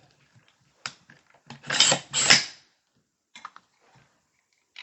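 A rifle being handled while it is reset for another trigger-pull weight reading: a click, then two louder sliding clatters about half a second apart, then a few light clicks.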